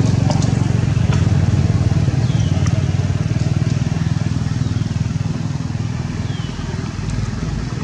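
A vehicle engine running steadily, a low hum that eases a little in the second half. A few faint, short, high falling chirps sound over it.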